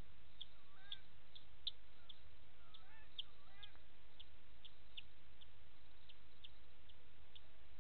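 An unidentified animal's call: short high-pitched pips repeating steadily about twice a second, with a few brief rising-and-falling chirps mixed in during the first half.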